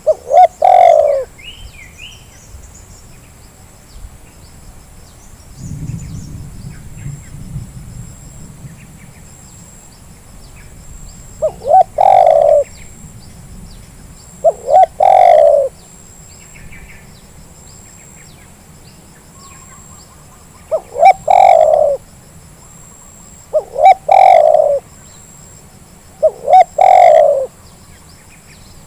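Spotted dove cooing: six loud phrases spaced several seconds apart, each a couple of quick short notes running into a longer, falling coo. Faint chirps of small birds between the phrases.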